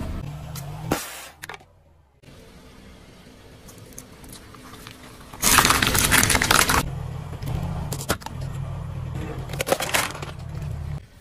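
Car tyre rolling over and crushing small objects, with the car's engine running low underneath. A loud crunching burst lasting over a second comes about five and a half seconds in as the tyre flattens plastic bowls, and several sharp cracks follow near the end as an egg is crushed.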